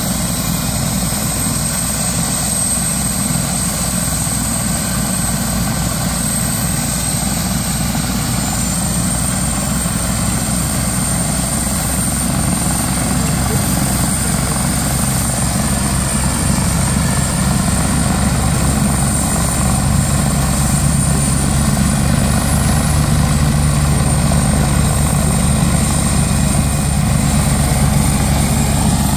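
Medical helicopter running: a steady rotor beat with a high turbine whine above it, getting a little louder in the second half.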